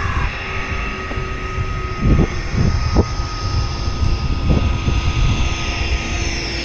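Hydrogen fuel-cell double-decker bus, a diesel ADL Enviro400 converted to electric drive, approaching with a steady whine over rough low wind rumble on the microphone. A few soft thumps come about two, three and four and a half seconds in.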